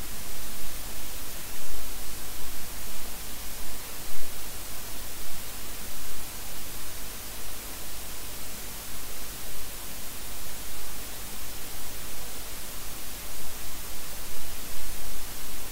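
Steady electronic hiss of recording static, brightest in the high range, with a low hum underneath.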